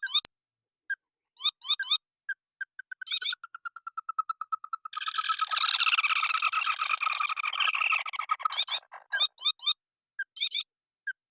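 Rails calling: short harsh calls repeated at intervals, then a quickening run of notes about a third of the way in that breaks into a loud, dense chorus of overlapping calls for about three and a half seconds, before the short calls resume.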